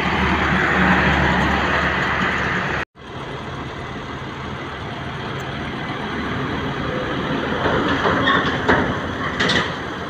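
Heavy road traffic with truck diesel engines running and passing: a steady low engine hum at first, then, after a sudden brief dropout about three seconds in, a continuous rumble of passing vehicles that swells slightly near the end.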